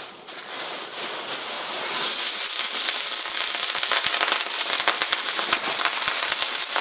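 Cold day-old cooked rice hitting hot peanut oil in a carbon steel wok, sizzling and crackling. The sizzle starts about two seconds in and grows louder as the rice piles in.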